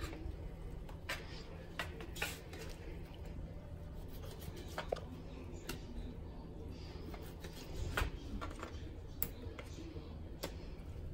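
Knife cutting a raw grouper fillet into small pieces on a paper plate: faint, scattered taps and scrapes, with a sharper knock about eight seconds in, over a low steady background hum.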